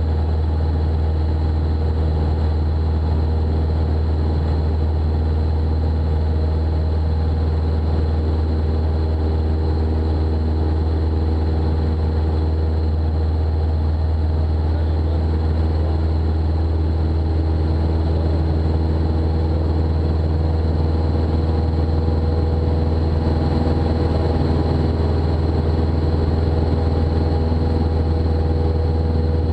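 Robin DR400-180's four-cylinder Lycoming engine and propeller running steadily at climb power, a constant low drone heard inside the cabin.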